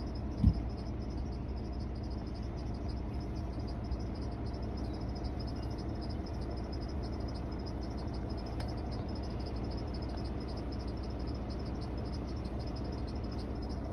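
Insects chirring steadily in fast, even pulses, over a steady low rumble. A brief low thump comes about half a second in.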